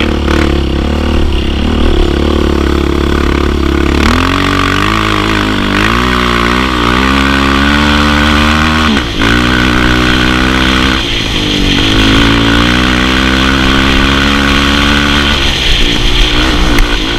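Suzuki sport quad's single-cylinder four-stroke engine under hard throttle, revving up and down as the quad is ridden across sand dunes. The pitch climbs and falls again and again, with a brief drop about nine seconds in.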